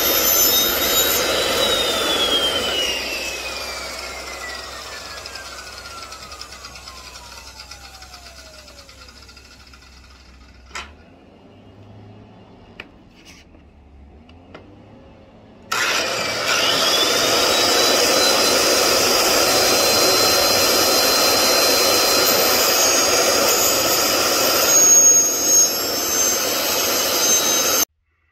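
An electric motor runs with a high whine and a loud rushing noise, then winds down, its whine falling steadily over about eight seconds as the noise fades. A few light clicks follow. About sixteen seconds in it starts again suddenly, the whine climbing quickly to a steady pitch and running until it cuts off near the end.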